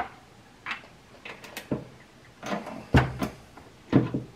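Metallic clunks and clicks of an RCBS Rock Chucker IV single-stage reloading press being worked, with brass cartridges clicking against the loading block as they are handled. The two loudest knocks come near the end, about a second apart.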